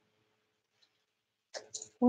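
Near silence of a small room, with two short clicks near the end.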